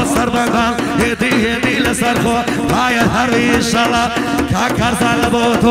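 Music from a song: an ornamented, wavering lead melody over a steady drum beat.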